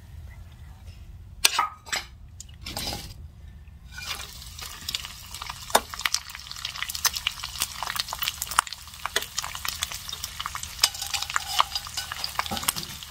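Dried squid frying in hot oil in a stainless steel frying pan. The first few seconds hold a few clicks and knocks from tongs and pan, then about four seconds in the squid starts to sizzle, with a steady crackle of popping spatters.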